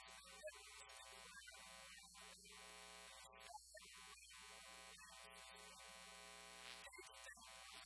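Near silence: a faint, steady electrical hum and buzz with light hiss.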